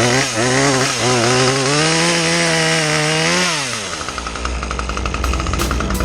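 Chainsaw engine running at high revs with a wavering, then rising pitch. About three and a half seconds in the throttle is let off and the pitch drops quickly to a low idle.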